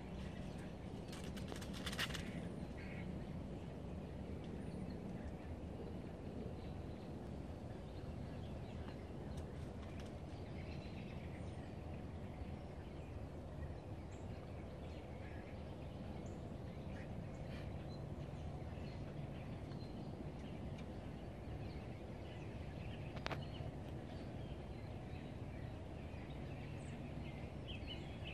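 Outdoor background noise with a steady low rumble and scattered faint bird calls, broken by a brief sharp clatter about two seconds in and a single sharp click later on.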